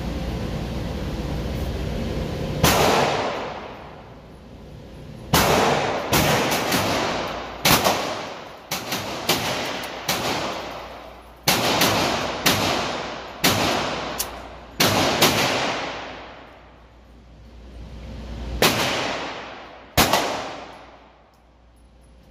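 9mm Canik TP9 Elite SC pistol fired slowly shot by shot, roughly fifteen shots at an uneven pace with short gaps, some in quick pairs. Each shot is a sharp crack that rings out in the enclosed indoor range.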